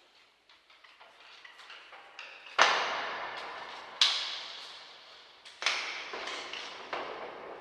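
Heavy metal impacts, four big clanking hits each trailing off in long reverb, after a run of small metallic clicks and rattles. The hits are processed with distortion and echo for an industrial horror atmosphere.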